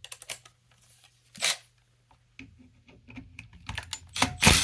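Handling noise of tools and chainsaw parts being picked up and moved on a workbench: scattered light clicks and rustles, with two louder scrapes, one about a second and a half in and one near the end.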